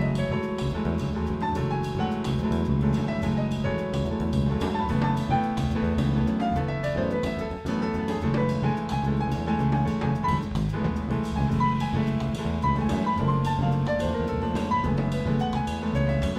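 Live jazz combo: grand piano playing busy lines over double bass and drums, with sticks keeping time on the cymbals.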